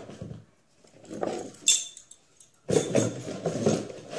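A cardboard box being handled and opened: rustling and scraping of cardboard in irregular bursts, with a short sharp sound a little under two seconds in and a longer stretch of handling near the end.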